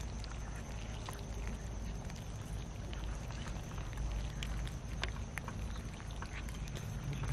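A group of cats eating cooked rice from a metal tray: scattered small clicks and smacks of chewing and lapping, irregular and overlapping.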